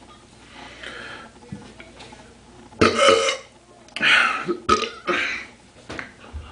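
A man belching several times, loudly, the first about three seconds in and more following over the next two seconds.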